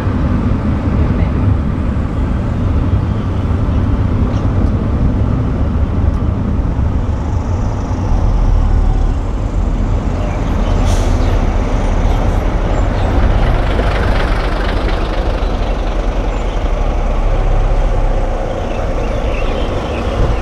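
Steady low engine rumble and road noise of a vehicle moving slowly. A tanker truck's diesel engine passes close by and makes the low rumble heavier from about 8 s to 18 s, with a short hiss near 11 s.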